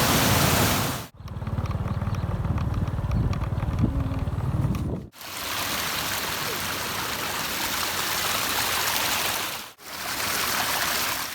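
Steady rush of falling and flowing water from a waterfall and stream. It breaks off briefly three times, about a second in, about five seconds in and near the end, and resumes each time with a slightly different sound; the second stretch is deeper than the others.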